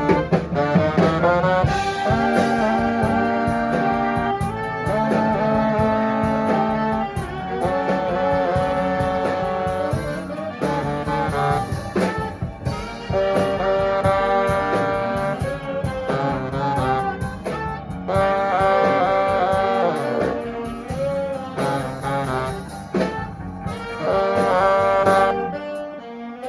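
Live swing band playing an instrumental passage, horns with saxophone carrying held and moving melody notes over a steady beat.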